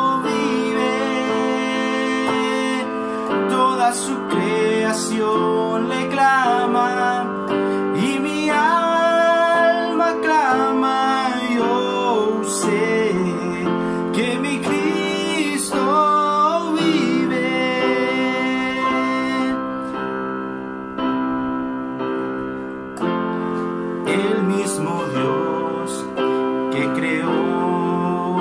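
A man singing a Spanish-language worship song over an instrumental backing track.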